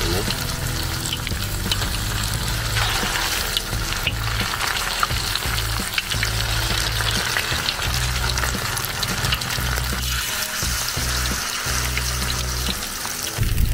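Batter-coated kangkong (water spinach) leaves deep-frying in hot oil in a wok: a steady sizzle full of fine crackling pops as the batter crisps.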